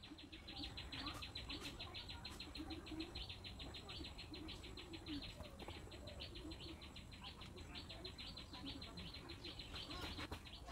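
Faint insect chirping: a fast, even run of high chirps that keeps going steadily.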